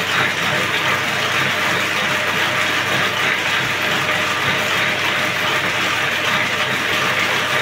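Motor-driven thread-winding machine running steadily, drawing silk thread off turning metal swifts: a continuous dense mechanical rattle with no change in pace.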